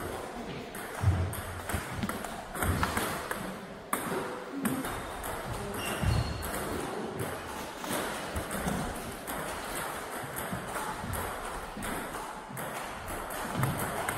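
Table tennis rallies: the plastic ball clicking sharply off the bats and bouncing on the table in quick, irregular exchanges.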